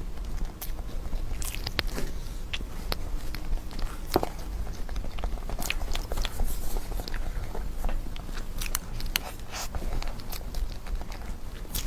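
Close-up eating sounds: a person biting and chewing, with many short, irregular wet clicks and crisp snaps.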